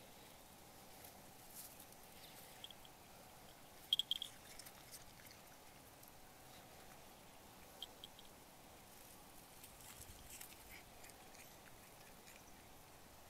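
Cat chewing green foxtail grass: faint crunching and small clicks. A louder cluster of short, sharp high-pitched clicks comes about four seconds in, with another near eight seconds.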